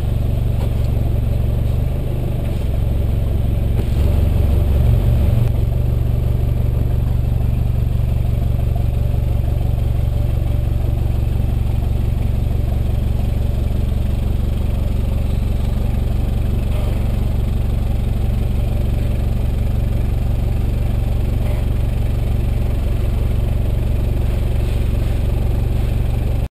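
Exhaust note of a 90 Series Toyota Prado's 3.0 L 1KZ-TE turbo-diesel four-cylinder through a 3-inch aftermarket exhaust, heard close to the tailpipe while the vehicle moves slowly: a steady deep drone that swells briefly about four seconds in as the engine revs.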